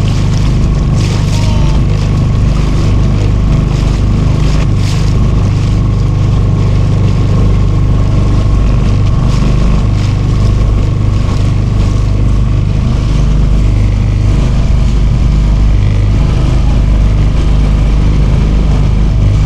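Small motorboat's engine running steadily at a constant speed, a loud, even low hum.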